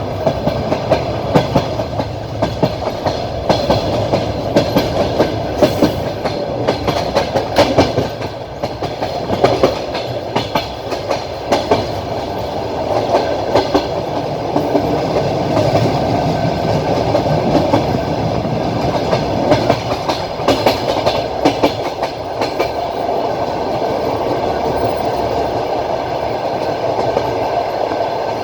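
Passenger train carriage running on the rails, with the wheels clattering over rail joints in quick clusters of clicks above a steady rolling rumble. The clicks come thick in the first half and thin out later, leaving mostly the running rumble.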